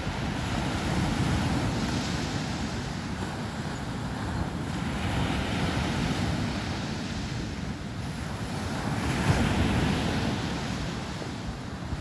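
Sea surf breaking on the beach, the wash swelling and easing about every four seconds, with wind rumbling on the microphone.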